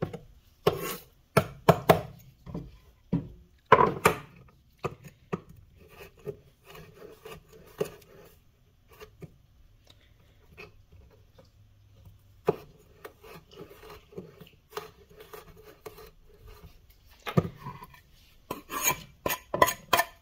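Garlic cloves being peeled and sliced with a kitchen knife on a wooden cutting board: scattered sharp taps and clicks, a stretch of soft rubbing in the middle, then a quick run of knife taps near the end.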